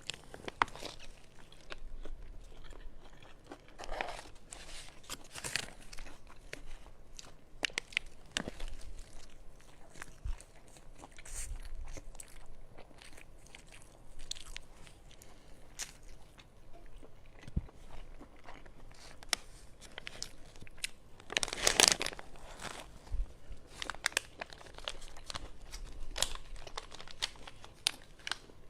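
Close-miked chewing and crunchy biting of a jianbing (Chinese savoury crepe): a run of short, crisp crackles with a louder burst of crunching about three-quarters of the way through.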